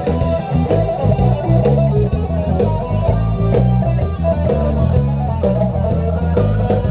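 Electric guitar played through an amplifier, instrumental rock with bass notes underneath.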